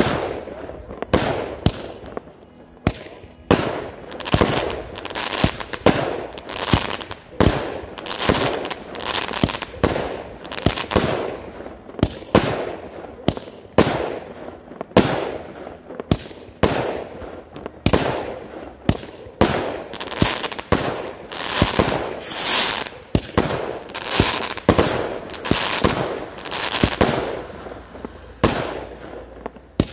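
Consumer firework cake (multi-shot compact) firing shot after shot, roughly one a second: sharp launch reports and bursting stars with crackle, each shot echoing briefly.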